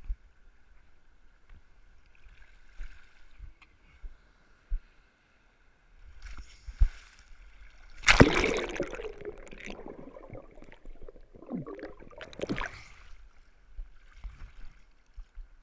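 Sea water sloshing and splashing against a waterproof action camera at the surface in shallow surf. There is a loud splash about eight seconds in as the camera goes under, then gurgling that fades, and another splash near twelve and a half seconds.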